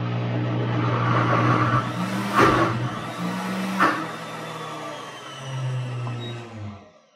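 Pampered Chef Deluxe Cooking Blender running at speed 4, blending guacamole, its motor hum shifting pitch a few times. Two sharp knocks come about two and a half and four seconds in, and the motor winds down and stops near the end.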